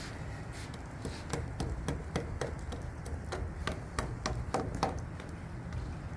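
A quick run of about a dozen sharp taps and knocks over a steady low rumble. The taps start about a second in and stop about five seconds in.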